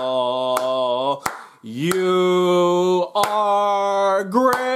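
A man's voice singing slow, long held notes on drawn-out words, each note a little higher than the one before. Sharp clicks fall between the notes.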